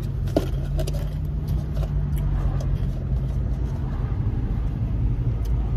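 Car cabin noise while driving: a steady low rumble of the engine and tyres heard from inside the car.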